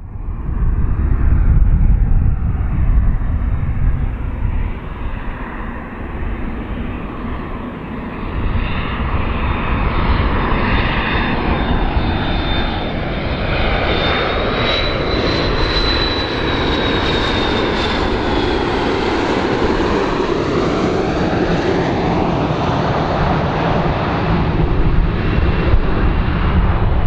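Airplane engines running loudly, a deep rumble with a rushing noise that starts suddenly. A high whine rises slightly about halfway through and then falls away.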